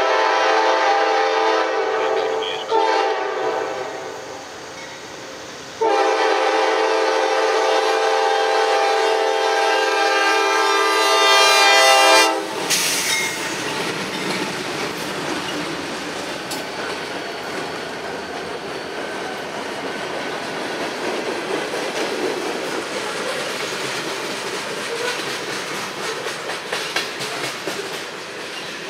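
CSX freight locomotive's air horn sounding for a grade crossing in blasts, the last held about six seconds and cutting off abruptly as the locomotives pass. Then the diesel locomotives and a long string of freight and tank cars rolling by, wheels clattering over the rails.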